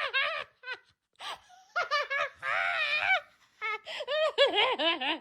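High-pitched laughter in several fits of short, rapid pulses, right after a joke's punchline.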